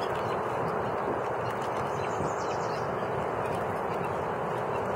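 Steady rushing wind noise on the camera's microphone, worsened by the camera's faulty wind-reduction filter, which drowns out the table sounds.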